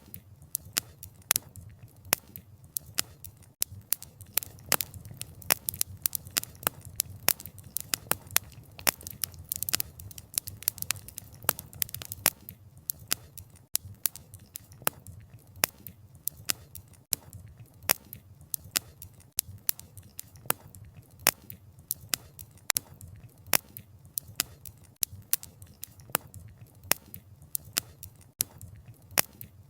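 Wood fire crackling: sharp, irregular pops and snaps several times a second, a little denser about a third of the way in, over a low, steady rumble of the burning fire.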